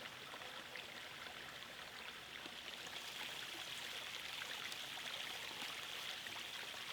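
Faint, steady rushing noise, of the kind running water makes, dotted with many light scattered ticks.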